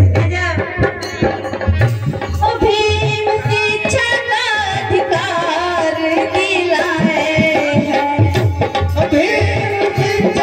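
Live Bhim geet, a Hindi devotional folk song, played over a PA: a tabla beat under a wavering melody line, with a woman singing.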